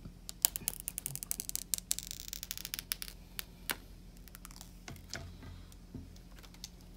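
Clear plastic protective film being peeled off the back of a new phone. It makes a dense crackle of small clicks for the first few seconds, then scattered clicks and rustles.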